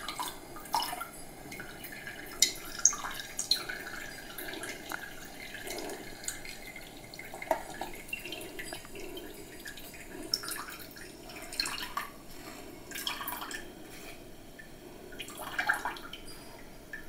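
Soft, irregular squelches and drips as wet beetroot pulp is pressed through a steel tea strainer and the juice drips into a cup below.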